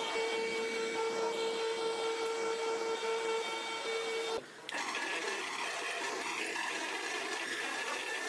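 Motor-driven abrasive grinding wheel spinning free with a steady hum, no blade against it. About four seconds in the sound cuts off briefly, and a drill press runs with a higher steady whine, its bit drilling into a steel knife blade.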